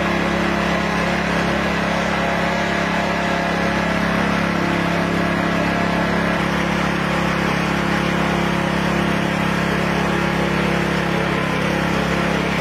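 An engine running steadily, an even hum that holds one pitch without revving.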